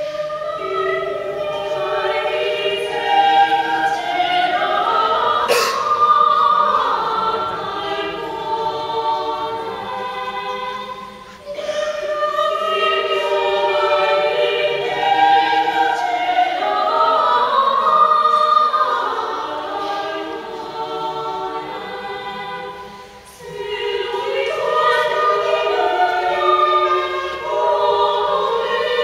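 Women's chamber choir singing a cappella in several voice parts, in three phrases separated by short breaths.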